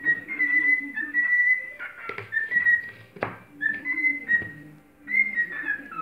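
A cockatiel whistling its song: a run of clear, fairly high notes held briefly at nearly the same pitch, some ending in short downward slides. Two sharp clicks from the tin's plastic lid being handled cut in about two and three seconds in.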